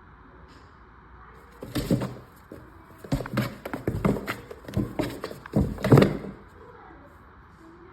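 Bumps, knocks and scratches of a cat scrambling about inside an empty cardboard box, in three short bouts.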